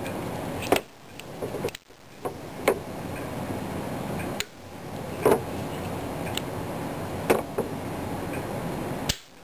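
Hammer and sear parts of a KSC Glock 18C gas-blowback airsoft pistol's stripped frame being pushed by finger, giving a few sharp, short metallic clicks several seconds apart over a steady hiss.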